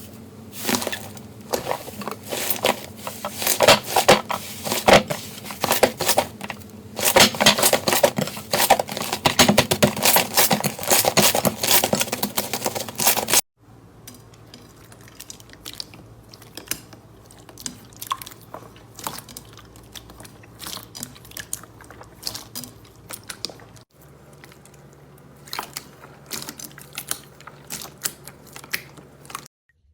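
Slime being squeezed and worked by hand: dense crackling and popping clicks, loudest in the first half. It cuts off suddenly about 13 seconds in to quieter, sparser clicking, with another abrupt change about 24 seconds in.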